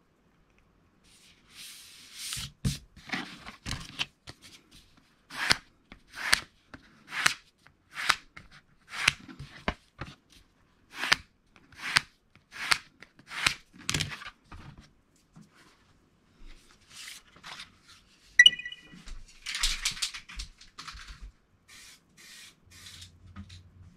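A yellow plastic squeegee rubbed over a printed paper sheet in repeated quick strokes, about one a second, pressing it flat onto styrene board. Paper rustling comes before the strokes, and a single sharp click with a brief ring comes about three-quarters of the way through.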